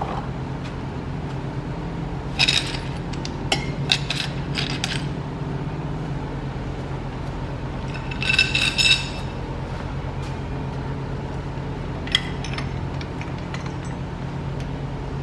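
Metal engine parts clinking and rattling as they are handled and set down, in a few short bursts, the loudest a cluster about eight seconds in. A steady low hum runs underneath.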